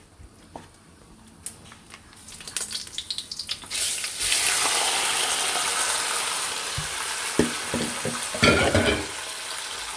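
Chicken pieces frying in hot oil with whole spices. A few light knocks at first, then a loud, steady sizzle that builds up over the first four seconds. Stirring strokes clatter in the pan near the end.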